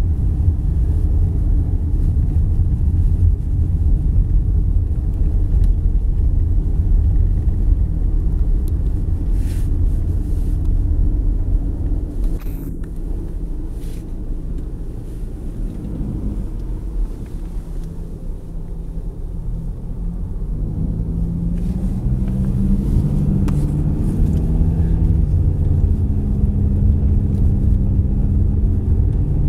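Car interior rumble while driving on snow-covered roads: steady low engine and road noise, a little quieter in the middle, then a clearer engine hum that grows louder in the last third.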